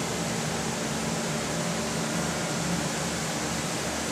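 Leblond engine lathe running under power: a steady mechanical hum with a low, even throb about twice a second.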